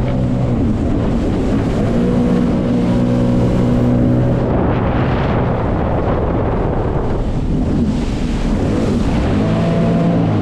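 Jet ski engine running under way, a steady hum with wind buffeting the microphone and water rushing. For a few seconds midway the engine tone sinks into the wind and water noise, and it comes back clearly near the end.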